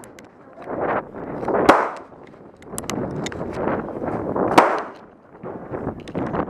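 Gunshots from other shooters on the range: two sharp reports about three seconds apart, each with a short echo, and fainter cracks between them.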